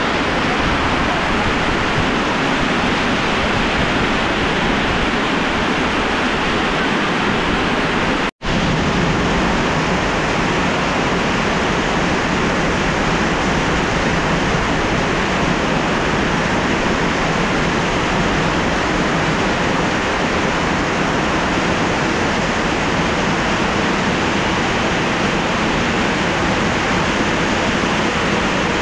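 Heavy tropical rain pouring down, a dense steady hiss of downpour. It cuts out for an instant about eight seconds in, then carries on just as heavily.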